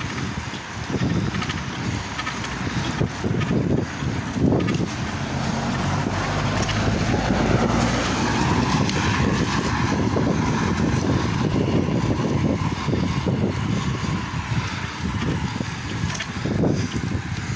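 Wind buffeting the microphone of a camera carried on a moving bicycle, over a steady rush of tyre and road noise on wet asphalt.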